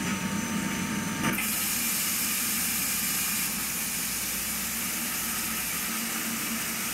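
Coolant flooding the wheel and wire-dressing zone inside a STUDER S41 CNC grinding machine, over a steady machine hum. The spray comes on with a surge about a second in and then keeps up a steady hiss of splashing liquid.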